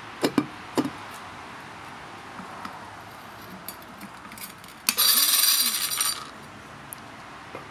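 A Makita CC301D 12 V cordless glass and tile cutter's diamond blade grinding into the hard glass of an upturned Pyrex dish: a loud, harsh burst lasting just over a second, starting about five seconds in. A few sharp clicks come near the start.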